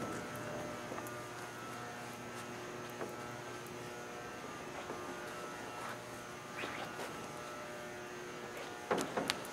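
Room tone: a steady electrical hum and buzz with faint scattered clicks, then a few sharp clicks near the end.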